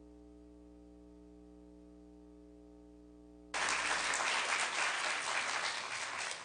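A faint steady hum, then an audience suddenly breaks into applause about three and a half seconds in, beginning to die away near the end.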